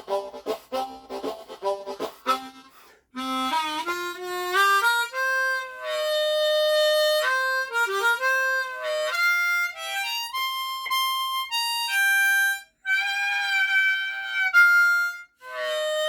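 Hohner Rocket low F diatonic harmonica being played: quick rhythmic chugging chords, a short break about three seconds in, then single notes climbing up into the high holes, with bent notes, an overblow and an overdraw worked in.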